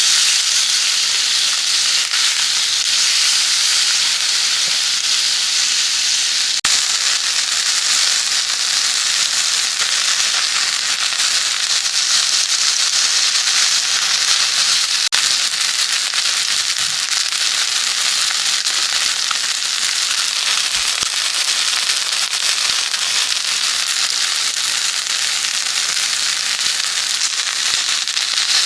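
Steady, dense sizzling and crackling from food cooking over a SOTO Hexa ST-942 mini fire pit, going on unchanged throughout.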